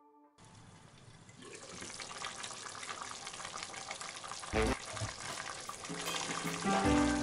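Chicken, potato and tomato stew bubbling in a steel pot: a fine crackling fizz that builds up over the first couple of seconds, with one dull thump a little past halfway. Background music comes in near the end.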